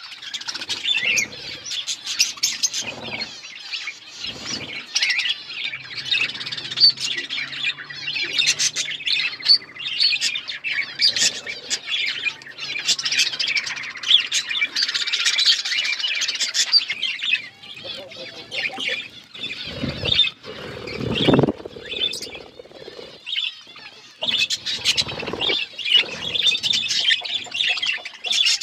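Budgerigars chattering, with continuous rapid chirps and warbling. A few short low thumps are mixed in, the strongest about two-thirds of the way through.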